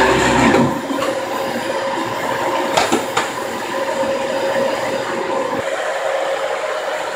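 Vacuum cleaner running with a steady whirr. Its deep low hum drops away about half a second in, and two or three short knocks come near the middle.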